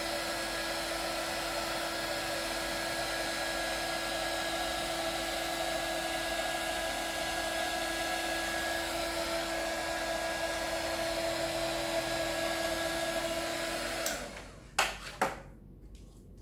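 Hot air gun blowing steadily with a constant motor hum, cutting off near the end, followed by two sharp clicks about half a second apart.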